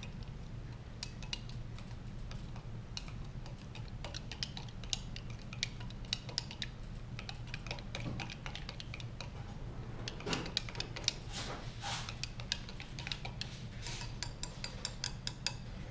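A plastic spoon stirring powdered milk and water in a glass beaker, clicking and scraping against the glass in quick irregular taps.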